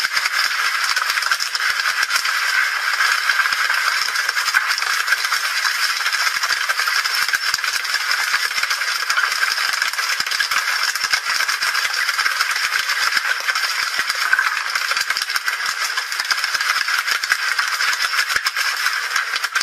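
Freshly landed tuna beating their tails against the boat's deck: a dense, steady rattling clatter of many rapid small knocks.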